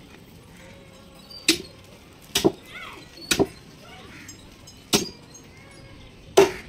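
A heavy knife chopping through a large catla fish into a wooden stump block: about five sharp chops roughly a second apart, one of them a quick double stroke.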